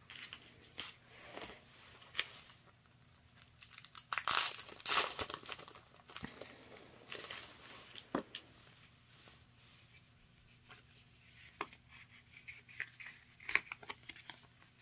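Rustling and tearing of card and plastic packaging as photocard packs are opened and handled, with light clicks of cards being picked up and set down. The loudest tearing and rustling comes about four to five seconds in.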